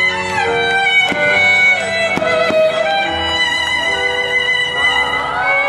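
Music with a violin carrying the melody in long held notes that change about every second.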